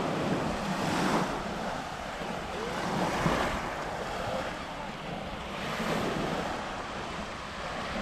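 Small waves breaking and washing up a sandy shore, the surf swelling every two to three seconds, with wind buffeting the microphone.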